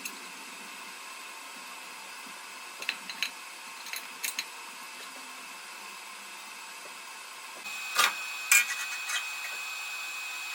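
Steady faint hum with a few light clicks, two about three seconds in and two about four seconds in, then two louder sharp knocks about eight seconds in.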